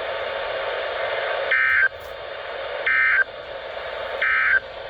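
NOAA Weather Radio receiver hiss, then three short warbling EAS (SAME) end-of-message data bursts about 1.4 s apart, the digital signal that closes the required weekly test.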